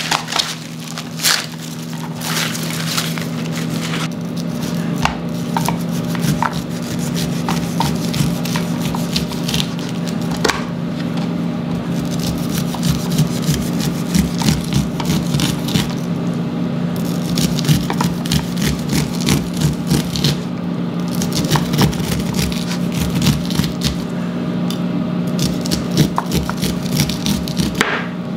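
Corn husks tearing as an ear of cooked corn is shucked, then a kitchen knife cutting and scraping kernels off the cobs onto a plastic cutting board in repeated short strokes. A steady low hum runs underneath.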